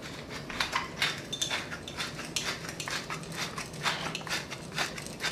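Hand pepper mill being twisted to grind pepper: a quick run of short dry crunchy clicks in uneven clusters, a few a second.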